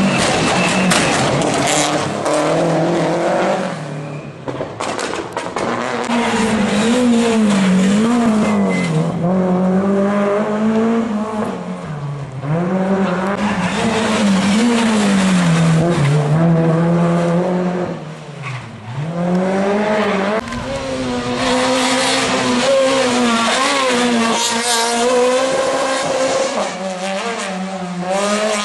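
Rally cars at full throttle on a special stage, engines revving up and dropping back over and over through gear changes. The sound comes in passes, one car after another, with brief dips at about four and eighteen seconds in.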